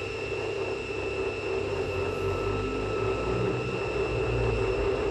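Steady mechanical hum with a high, even whine, like an electric motor running.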